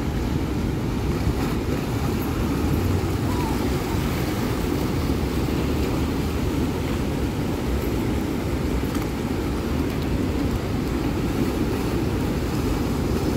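Steady, even rushing noise of wind on the microphone mixed with ocean surf, deepest in the low end, with no distinct events.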